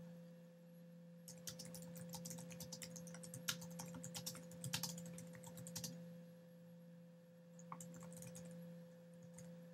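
Faint typing on a computer keyboard: a quick run of keystrokes for about five seconds, a short pause, then a few scattered keystrokes near the end, over a faint steady hum.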